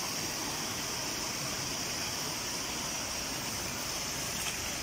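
Steady rush of water flowing in a concrete drain, with a steady high-pitched hiss over it.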